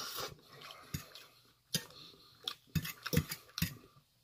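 A person chewing a mouthful of food, with a string of short, sharp mouth clicks and smacks.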